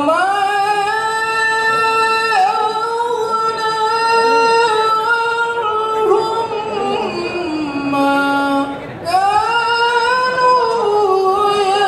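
Male qari reciting the Quran in melodic tilawah style: long, high held notes with ornamented turns, sinking to a lower held note, a short breath about nine seconds in, then the voice climbs again.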